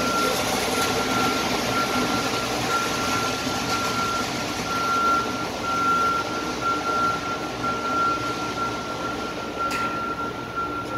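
Electric arc welding inside a steel tank: a steady, unbroken crackling hiss. A thin high whine comes and goes above it.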